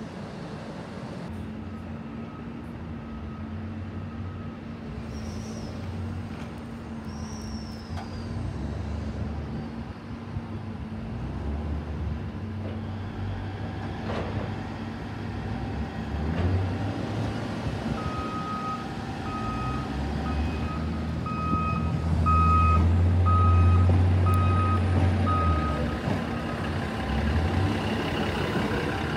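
An NSW TrainLink Xplorer diesel railcar runs at the platform and then pulls away, its engines getting louder as it moves off. A repeated warning beep, about one a second, sounds for several seconds before it departs.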